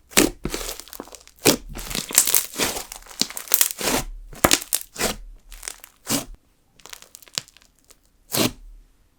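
Fluffed-up jelly slime mixed with sugar beads being squeezed and stretched by hand: irregular crackling bursts of bubble pops and crunches, growing sparser towards the end, with one last strong pop near the end.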